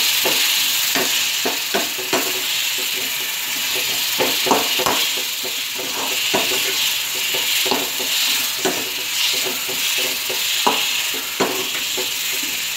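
Drumstick pieces and masala sizzling in a black iron kadai while a metal slotted spatula stirs them, with irregular clinks and scrapes of the spatula against the pan over a steady sizzle.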